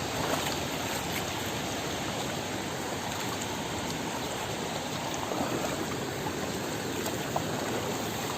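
Steady rush of flowing stream water, with a couple of faint splashes from feet wading in it.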